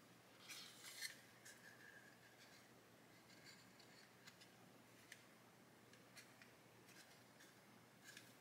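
Faint clicks and scraping of plastic model kit parts being handled as small hatches are pressed onto a 1/35 Meng Chieftain turret, a little cluster of clicks about a second in and light ticks after. The hatches do not snap home; they are too tight to seat.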